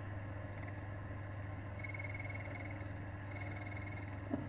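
Silca Duo key cutting machine running with a steady motor hum, its cutter lightly catching the brass key blank twice with a thin, high rasp. This is the "little nibble" that shows the cutter has just reached the blank during depth calibration.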